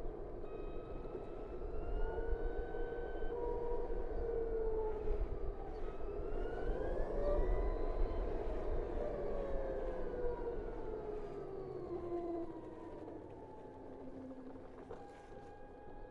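BMW CE 04 electric scooter's drive motor whining along with wind and road rumble, the whine rising in pitch as it speeds up about halfway through, then falling as it slows, the ride noise dropping away near the end.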